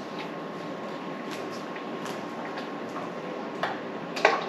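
A few light clinks of kitchen utensils and cookware over a steady background hiss, the sharpest clink near the end.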